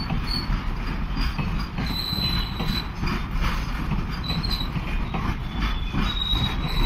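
Container wagons of a goods train passing close at speed: a steady rumble and rattle of steel wheels on rail, with clicks from rail joints and short high wheel squeals that come and go.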